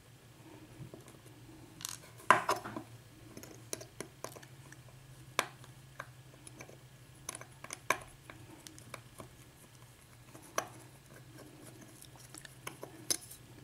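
Small metal clicks and clinks of a Kwikset-keyway pin tumbler lock being taken apart by hand, its plug and pins handled piece by piece, with one louder clack about two seconds in and a low steady hum underneath.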